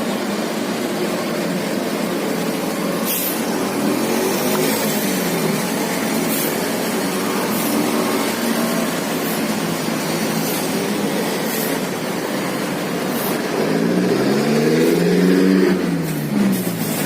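Bus diesel engine revving up and down, its pitch rising and falling several times and climbing highest near the end, with brief high hisses recurring through it.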